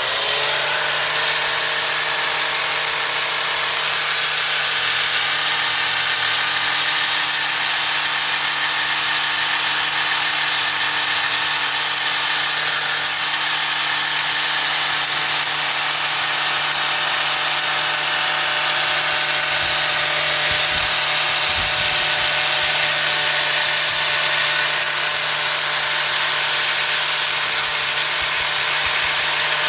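Power tool spinning up and grinding steadily on a broken steel wheel stud, taking a flat onto its side, with a harsh high hiss over a steady motor tone.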